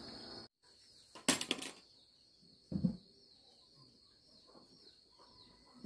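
Crickets trilling steadily and faintly, broken about a second in by a brief loud rustling burst and, about a second later, a short dull thud.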